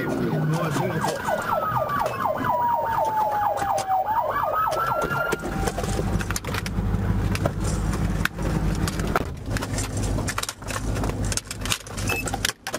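Police car siren wailing, one long falling sweep that rises again, with a rapid pulsing over it; it cuts off about five seconds in. After that a low rumble runs on, broken by scattered knocks and clicks.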